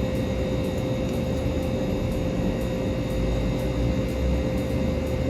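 A steady droning hum and low rumble with a constant tone, unchanging throughout.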